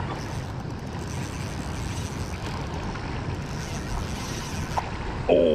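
Low, steady rushing noise of wind buffeting the microphone over moving spillway water.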